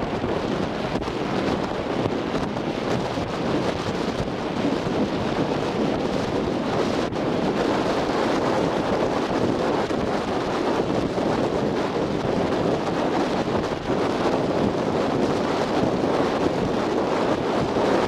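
Steady rush of wind buffeting the microphone and water rushing past a RIB speedboat running at speed, with no distinct engine note standing out.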